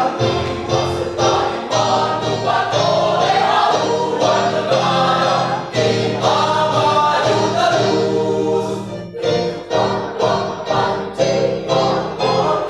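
Mixed choir of men's and women's voices singing a march together, with a short break between phrases about nine seconds in.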